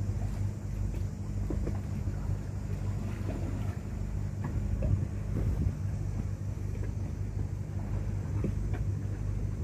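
Motor yacht's engine running with a steady low hum while under way, with water rushing past the hull and occasional short knocks and splashes.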